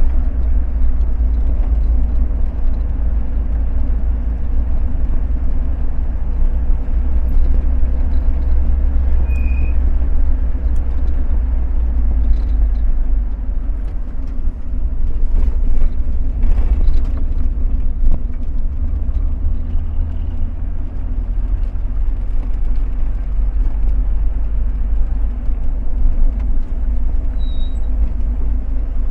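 A road vehicle driving: steady low rumble of engine and tyres on the road.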